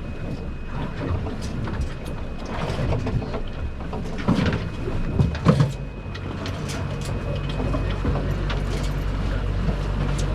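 Boat engine running with a steady low hum that grows stronger past the middle, while knocks and clatter of gear being handled on deck come in the first half, two of them louder about four and a half and five and a half seconds in.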